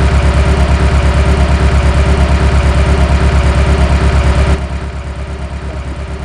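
Simulated car engine idling roughly, a loud pulsing beat of about five pulses a second, the sound of a misfire that the technician traces to a faulty ignition coil. The sound drops in loudness about four and a half seconds in.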